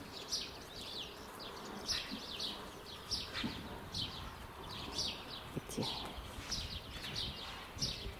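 Small birds chirping busily: many short, high, downward-sliding chirps, repeating and overlapping, over a faint outdoor hiss.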